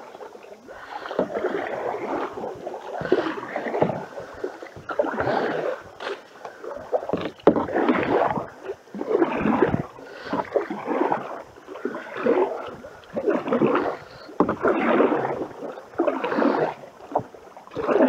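Canoe paddles stroking through the water in a steady rhythm, about one stroke a second, each stroke a splashing swish as the canoe is driven upstream against the current.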